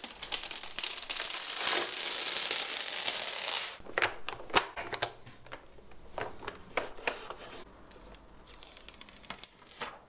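Plastic protective film crackling as it is peeled and handled on a robot vacuum's top cover for about the first three and a half seconds. After that come scattered light clicks and taps of handling the robot.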